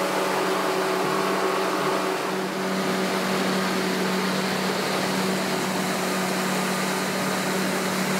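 Pontoon boat's outboard motor running steadily: an even drone with a strong low hum, over a constant hiss of wind and water.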